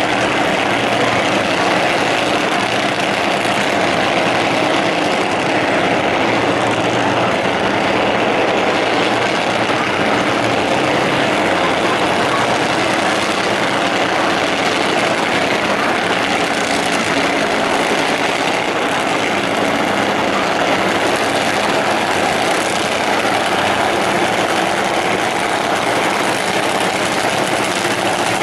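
Top Fuel dragster's supercharged, nitromethane-burning V8 idling loudly and steadily as the car is backed up to the start line after its burnout.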